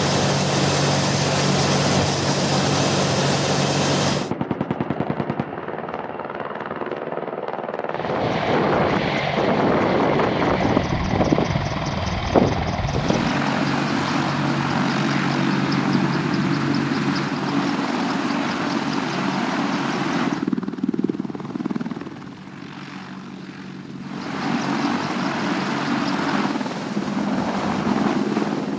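AH-64D Apache attack helicopter running, its rotor beat and twin turboshaft engines heard across several spliced clips, with the sound changing abruptly every few seconds and a quieter stretch about three-quarters of the way through.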